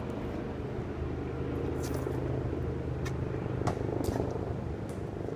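Steady low mechanical hum of a motor running, with a few short, sharp high clicks, several of them about three to four seconds in.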